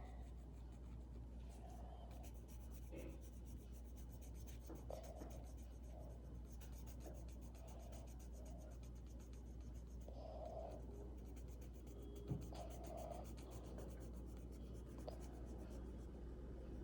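Faint scratching of a drawing tool on paper in short strokes with pauses, over a low steady hum.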